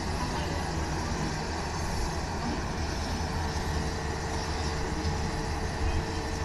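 Kintetsu electric commuter train at a station: a steady low rumble and hum, with a steady whine joining about halfway through.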